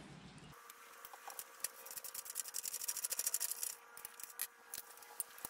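Ratchet wrench clicking rapidly in runs, backing out a bolt at the top of the motorcycle lift's arm where the handle stem mounts.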